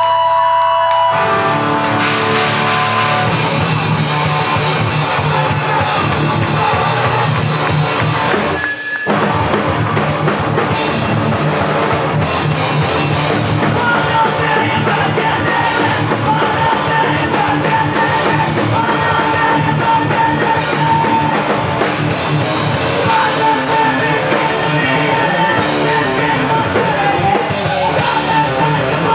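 A rock band playing live. A guitar rings alone for about a second, then drums and the full band come in; the band breaks off briefly near nine seconds and plays on.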